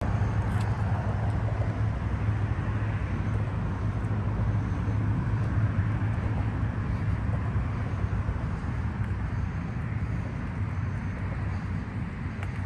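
Mercedes 380SL's 5.0-litre V8 idling steadily with a low, even hum.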